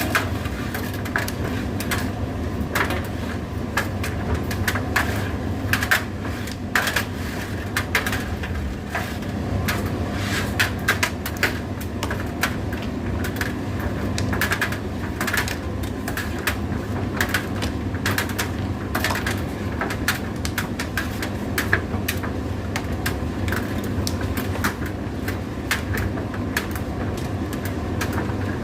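Indesit IDC8T3 condenser tumble dryer running: a steady motor and fan hum under frequent irregular clicks and knocks from the turning drum and its load.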